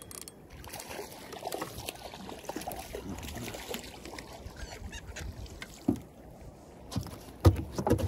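Seagulls calling over the sea around a small dinghy, with a few sharp knocks on the boat near the end.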